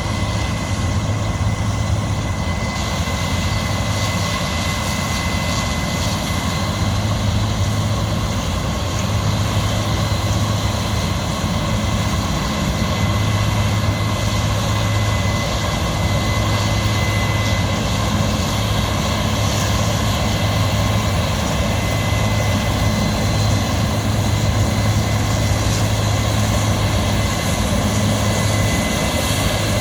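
Large diesel harvest machinery running steadily at constant engine speed: a deep, even hum with a thin steady whine above it.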